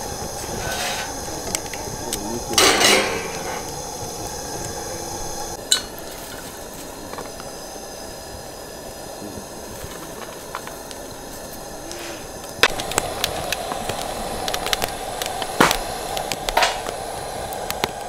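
Cooking over a wood fire: a steady hiss with a brief loud hiss about two and a half seconds in, then, from about twelve seconds in, scattered clicks and clinks of chopsticks and utensils against a metal plate.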